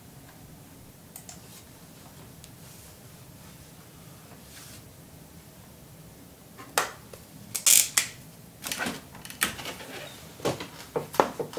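Quiet room tone, then from about seven seconds in a run of sharp, irregular clicks and knocks, like something being handled close to the microphone.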